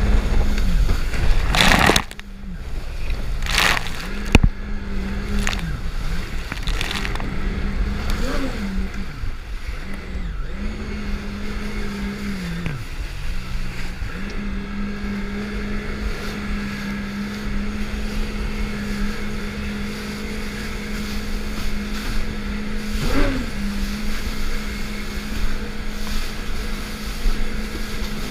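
Jet ski engine running at speed, its steady drone dropping in pitch and climbing back a few times, over the rush of water and spray off the hull. A few sharp slaps in the first few seconds.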